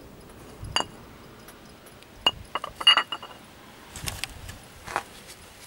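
A scattering of sharp metallic clinks and knocks from the compressor's metal parts and tools being handled while it is stripped down, the loudest about three seconds in.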